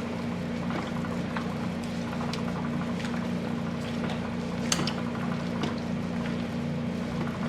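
A spoon stirs a wet mix of chicken thighs, cheese and broth in a slow cooker crock, squelching and sloshing, with occasional clicks of the spoon against the crock. A steady low hum runs underneath.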